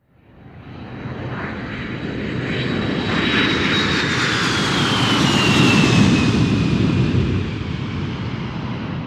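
Fighter plane flying past: engine noise swells from nothing to a peak about six seconds in, then fades. A high whine drops steadily in pitch as the plane passes.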